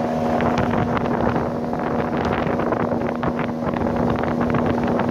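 Outboard motor running at a steady pitch, driving an inflatable PVC boat across choppy water, with small waves slapping the hull and wind buffeting the microphone.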